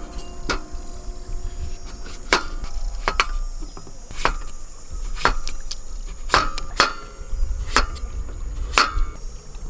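Wood being struck with a tool: about ten sharp knocks, roughly one a second and unevenly spaced, some with a brief ring.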